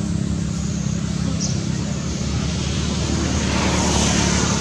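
A motor vehicle engine running steadily with a low hum, and a hiss that swells near the end.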